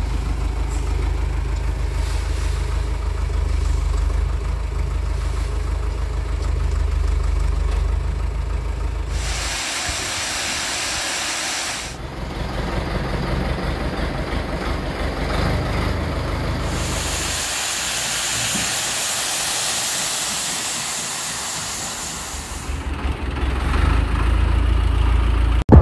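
Ursus tractor's diesel engine running in several stretches, alternating with a steady hiss of grain pouring from the auger into a bulk bag.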